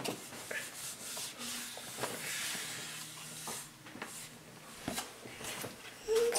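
Soft rubbing and scraping as children paint at a table: plastic squeeze bottles of washable paint being opened and squeezed onto paper plates and a brush working paint, with a few light clicks. A high gliding squeal starts near the end.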